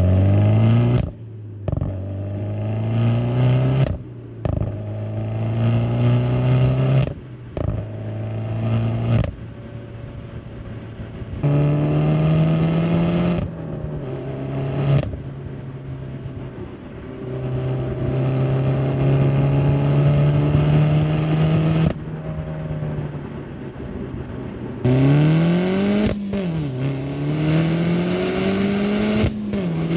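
Peugeot 308 GTi's 1.6-litre turbocharged four-cylinder engine and exhaust under hard acceleration, its pitch climbing and then falling back at each upshift. The sound comes as several short clips with abrupt cuts between them, heard partly from inside the cabin and partly at the exhaust tip.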